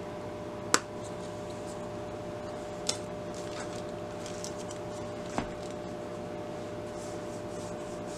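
Three sharp plastic clicks a couple of seconds apart as small acrylic paint pots are handled and set down on the book, over a steady electrical hum. Near the end a paintbrush swishes faintly across paper.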